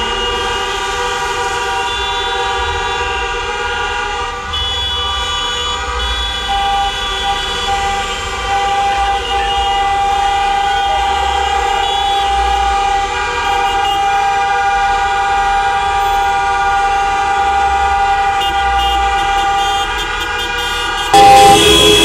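Many car horns honking at once from a slow convoy of passing cars, held and overlapping into a continuous wall of steady tones over a low traffic rumble. The honking gets suddenly louder near the end.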